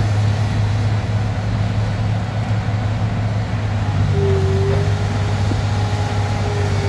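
Liebherr R 964 crawler excavator's diesel engine running steadily under load as it swings a loaded bucket over to a dump truck, with a short higher-pitched tone about four seconds in.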